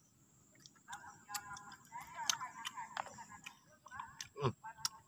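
Close-up chewing with many small wet mouth clicks and smacks, and a short hum of the voice about four and a half seconds in. A faint, steady high whine runs underneath.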